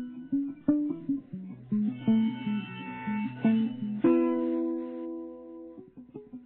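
Background music: a plucked guitar tune of short notes, with a chord struck about four seconds in and left to ring for nearly two seconds before the picking resumes.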